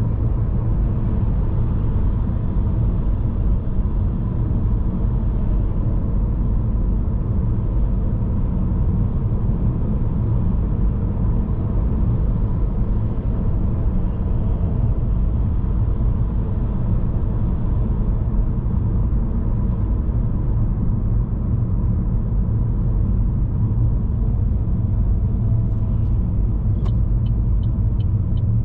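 Steady low road and engine rumble of a car being driven, heard from inside the cabin. Near the end comes a short run of even, sharp ticks, about three a second.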